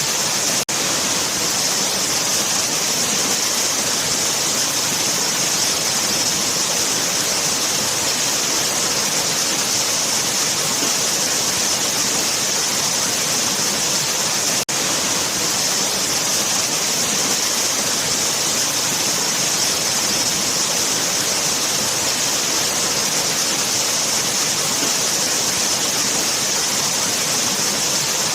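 Waterfall: a steady rush of falling water, strongest in the hiss. It cuts out for an instant twice, just under a second in and again about halfway through.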